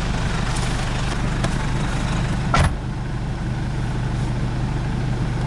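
Off-road vehicle engine running steadily at idle, heard from inside the cab, with one sharp thump about halfway through.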